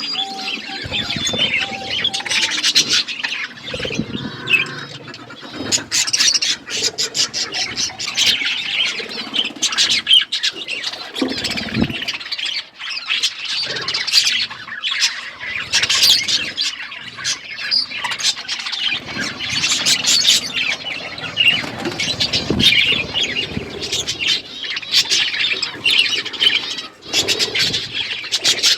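A flock of budgerigars chattering: a continuous mix of warbling, chirps and squawks, with many sharp clicks.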